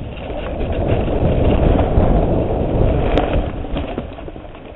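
Mountain bike rolling along a dirt trail: a low rushing of wind on the microphone and tyre rumble that swells and then fades, with one sharp click about three seconds in.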